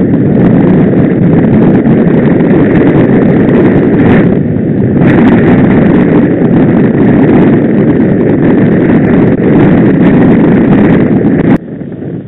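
Loud wind noise buffeting the microphone of a camera riding on a moving road bike, a steady rushing roar that drops away suddenly near the end.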